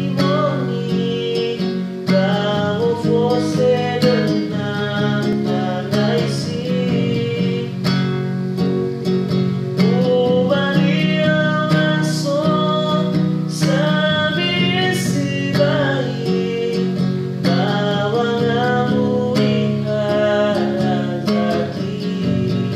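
A man singing in sustained phrases of a few seconds each, accompanied by a strummed acoustic guitar.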